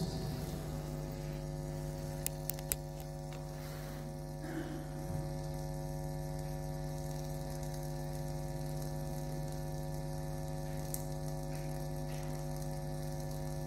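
A steady, unchanging electronic drone through the sound system, either a held keyboard tone or amplifier hum. A few faint clicks come about two to three seconds in.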